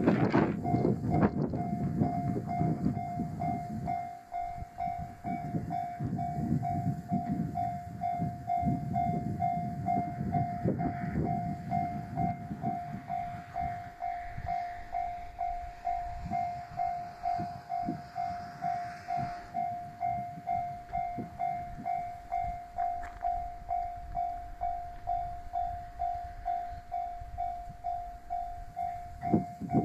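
Level-crossing warning bell ringing about twice a second while a train rumbles over the crossing, loud for the first few seconds, then fading with scattered wheel clicks as it moves away.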